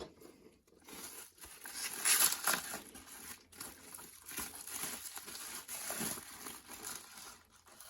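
Packaging crinkling and rustling in irregular bursts as it is handled and unwrapped, loudest about two seconds in.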